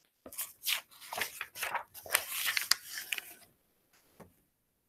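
Paper rustling and crinkling as a picture book's page is handled and turned, lasting about three seconds before it stops, with a small tick near the end.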